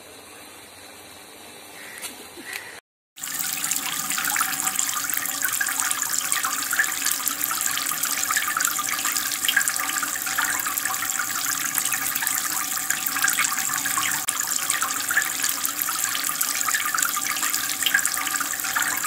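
Many thin streams of water pouring from a perforated PVC pipe onto the surface of a small aquarium, a steady rain-like splashing fed by a submersible pump. It starts suddenly about three seconds in.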